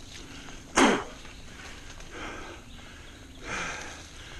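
Mountain biker breathing hard while riding: one loud exhale about a second in, then softer breaths at a steady rhythm of roughly one a second.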